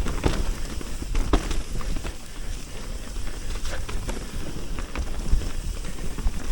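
Mountain bike riding fast down a dirt trail: a steady rumble of tyres on dirt, with the bike knocking and rattling over bumps, hardest about a third of a second and a second in.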